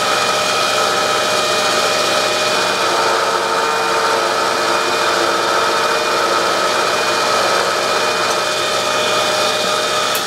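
Bridgeport milling machine spindle running steadily with a whine while a countersink cutter is fed down into a hole in a metal plate to cut a screw-head seat.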